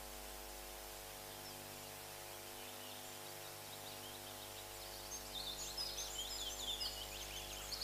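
Small birds chirping in quick, high twitters, faint at first and getting busier about halfway in, over a steady low electrical hum.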